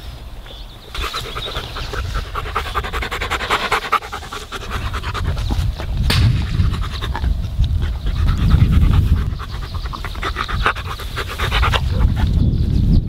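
Blue Weimaraner panting rapidly in two stretches, near the start and again near the end. A low rumble on the microphone builds through the second half.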